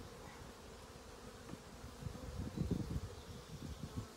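Honeybees buzzing around an open hive in a steady hum, with low bumps and rumbles loudest about two to three seconds in.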